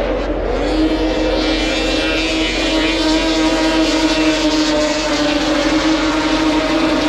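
Pack of racing snowmobiles running flat out on the ice oval: a loud, steady, high-pitched engine drone from several sleds at once, wavering slightly as they pass.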